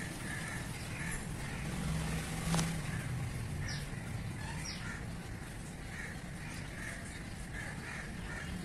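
Birds calling: repeated short harsh calls throughout, and two brief high whistles that fall in pitch, about four and five seconds in, over a steady low rumble.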